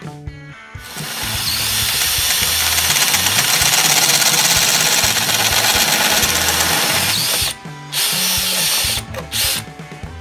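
Cordless drill boring a hole through a clamped metal gland plate, a steady loud grinding that runs for about six and a half seconds and then comes in two short bursts as the hole is finished. Background music with a repeating bass line plays underneath.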